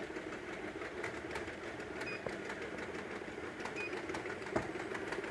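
Automatic bottle-capping machine running with a steady hum and faint rapid clicking. Two short high beeps sound, about two and about four seconds in.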